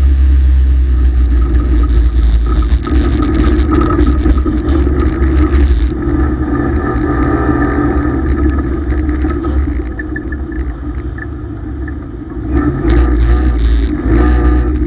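Dirt-track race car's engine heard from inside the cockpit, running hard on a qualifying lap. It quietens for about two seconds past the middle, then picks up again as the driver gets back on the throttle.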